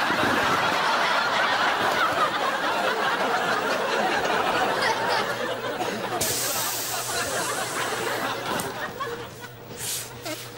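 Studio audience laughing. About six seconds in, a sudden hiss of air rushing out of a large inflatable toy as it is squeezed flat, fading over the next couple of seconds. Near the end, plastic bin-bag rustling.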